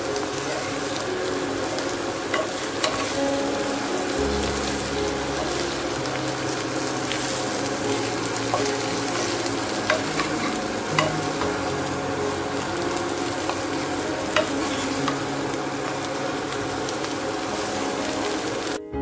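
Sliced potatoes and broccoli sizzling as they fry in oil in a pan, with a few light clicks as they are stirred.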